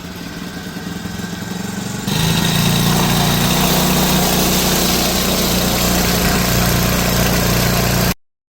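A 4 hp Hangkai four-stroke outboard motor running after being started. It grows louder over the first two seconds, jumps to a much louder steady run about two seconds in, then cuts off abruptly near the end.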